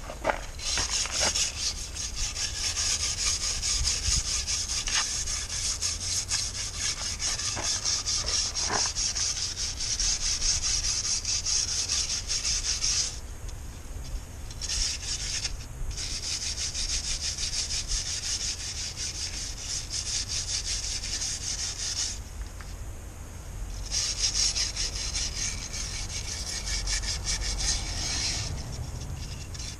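Hand-held wire brush scrubbed back and forth along a metal strip in fast strokes, a raspy scratching broken by a few short pauses.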